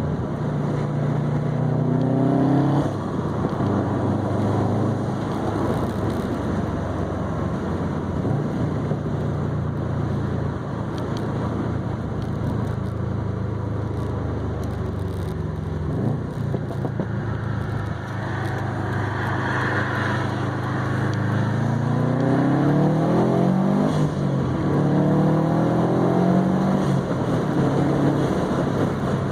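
Turbocharged flat-four of a 2020 Subaru WRX STI, heard through an ETS non-resonated catback exhaust and a Grimmspeed catted downpipe while driving. The exhaust drones steadily at cruise, and its pitch climbs under acceleration a few times before dropping back at each upshift.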